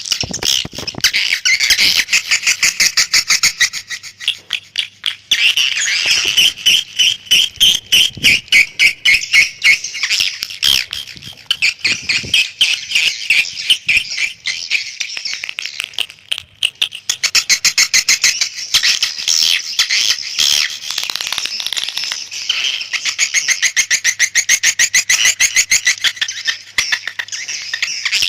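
Recorded swiftlet calls: a dense, rapid, high-pitched twittering chatter of many birds, in long runs broken by a few brief dips. This is a lure call track of the kind played from swiftlet houses to draw the birds in to roost and nest.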